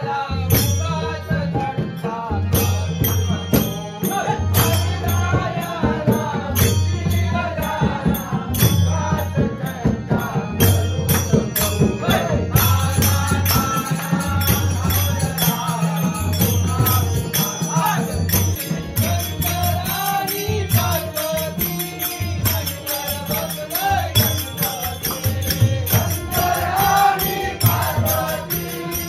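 A group singing a Konkan devotional bhajan, accompanied by a steadily beating hand drum and small clinking cymbals.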